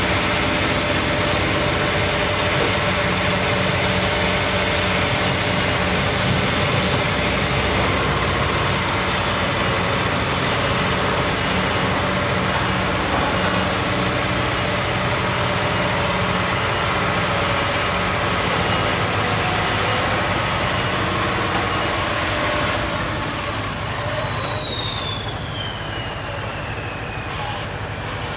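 Sheet-piling rig's vibratory hammer driving a steel sheet pile: a loud, steady machine drone with a high whine. In the last few seconds the whine slides down in pitch and the sound drops a little, as the hammer winds down.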